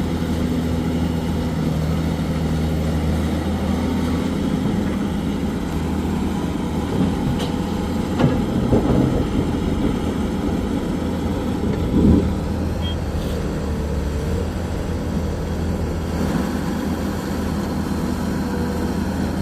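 Excavator's diesel engine running steadily, with a few heavy thuds about eight and twelve seconds in.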